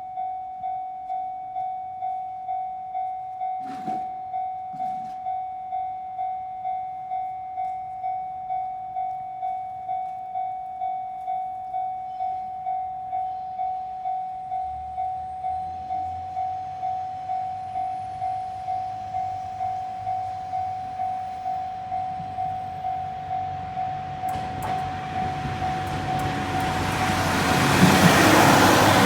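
A Japanese railway level crossing's warning bell ringing, an even electronic ding repeating a little under twice a second. Under it a train's rumble builds from about halfway, and the train passes loudly over the crossing near the end.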